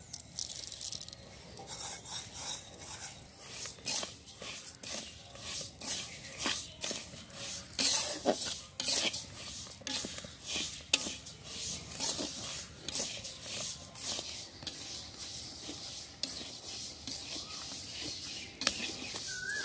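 Metal spatula scraping and stirring dry split moong dal around an iron wok as it is dry-roasted, a run of irregular rasping strokes, about one to two a second, with the grains rustling against the metal.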